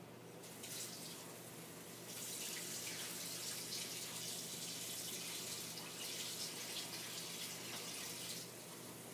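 Water running, like a tap into a sink: it starts about half a second in, gets stronger about two seconds in and stops about eight and a half seconds in, over a low steady hum.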